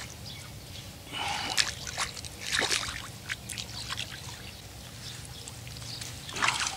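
Pond water splashing and trickling around a landing net as a hooked crucian carp is netted and lifted out, in a few short splashes with drips between.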